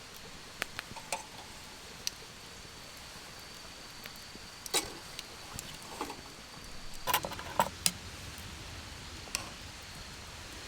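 Scattered sharp clicks and small knocks, a few close together about five seconds in and a tight cluster about seven to eight seconds in, over steady background hiss and a faint thin high steady tone.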